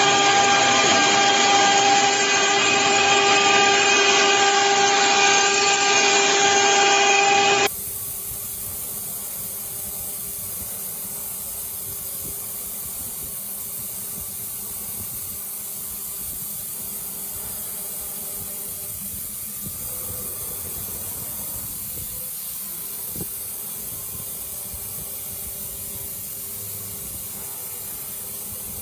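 CNC router spindle carving a wooden panel, a loud steady whine with several steady tones over the cutting noise. About eight seconds in it cuts off suddenly to a much quieter steady hiss with a faint hum as a small CNC engraver mills a laminated board.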